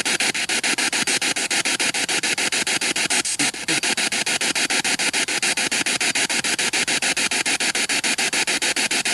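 A spirit box sweeping through radio stations, played through a small Bluetooth speaker: choppy radio static, cut into fast even pulses about nine times a second, with one brief louder fragment a little over three seconds in.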